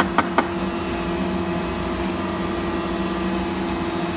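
Steady hum of running shop machinery around a CNC router, with two sharp taps in the first half second.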